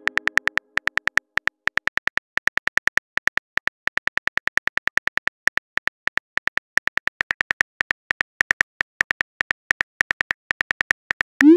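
Phone keyboard click sounds tapping out a text message: a long, quick, uneven run of sharp ticks, about five or six a second. A short rising whoosh comes right at the end as the message is sent.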